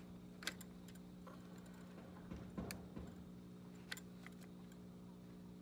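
A few sharp metallic clicks and a soft scrape from an Allen wrench, screws and the top cap being worked loose on a Paslode pneumatic framing stapler. A steady low hum sounds throughout.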